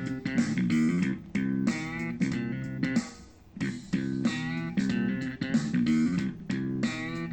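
Guitar-led music with bass, played back through a Zealot S53 portable Bluetooth speaker for a sound test. The music drops away briefly about three seconds in.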